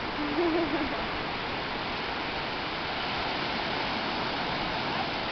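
Steady wash of small surf breaking and running up the beach, with a brief vocal sound from a person about half a second in.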